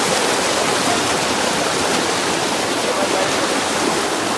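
Fast-flowing floodwater rushing steadily, a loud, even sound of churning water.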